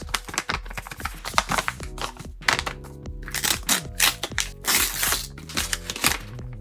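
Paper crinkling and rustling in several bursts as a handmade paper blind bag is opened, over background music.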